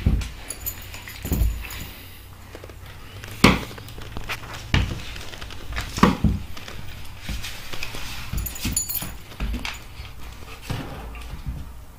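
A German Shepherd and a cat play-wrestling on a hardwood floor: scuffling with a string of irregular thumps as their bodies and paws hit the boards. The loudest thumps come about three and a half and six seconds in.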